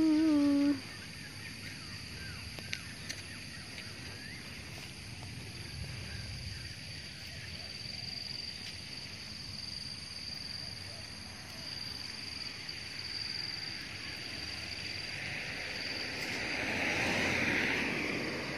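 Outdoor ambience: a steady faint hiss with a thin, high, unbroken insect drone, swelling to a louder rushing noise near the end.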